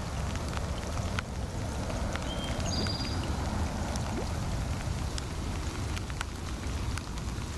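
Rain falling, with scattered sharp ticks of drops striking close by over a steady low rumble.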